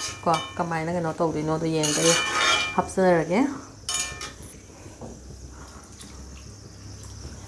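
A metal spoon clinks and scrapes against a pan while stirring a watery vegetable curry, with a sharp knock about four seconds in. A woman's voice is heard over the first few seconds.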